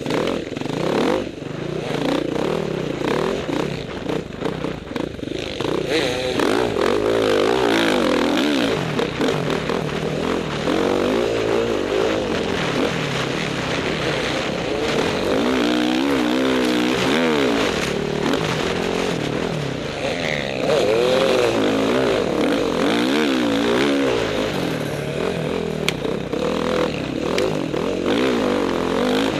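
Off-road motorcycle engine heard from on board, running hard with its pitch rising and falling over and over as the throttle is opened and closed along the sandy track.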